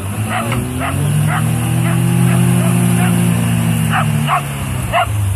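A small dog barking repeatedly while a Lada Niva engine revs up about half a second in, holds high under load for about three seconds, then drops back near the end, as one Niva tows another out of mud on a strap.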